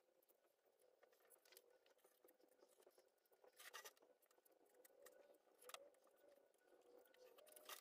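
Near silence, with a faint steady hum and a few faint scratches and light taps from a pencil marking a wooden plank and the plank being handled.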